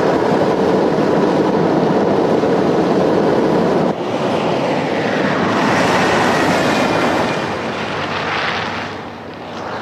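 Heavy lorry driving, a loud steady mix of diesel engine and road noise, changing abruptly about four seconds in.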